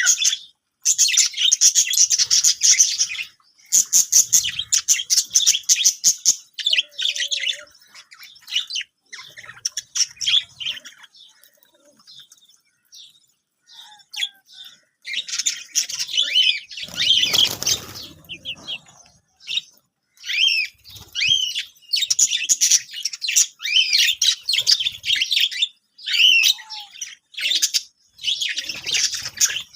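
Budgerigars chirping and chattering in rapid, busy bursts, with a quieter spell about a third of the way through. A brief rustle sounds a little past the middle.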